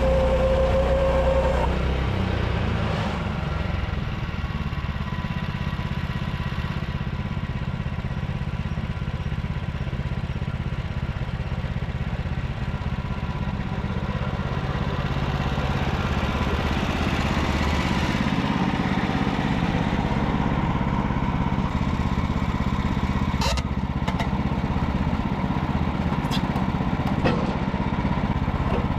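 Woodland Mills HM126 portable band sawmill's gas engine running steadily under power, with a few sharp clicks near the end.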